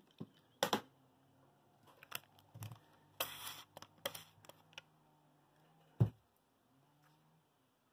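Quiet handling noises of a paint palette of plastic film over paper being lifted and moved: scattered small clicks, a short crinkle about three seconds in, and a single soft knock about six seconds in.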